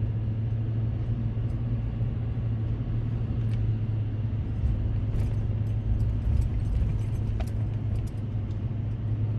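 Steady low drone of a car's engine and road noise heard from inside the cabin while driving, with a few faint small clicks.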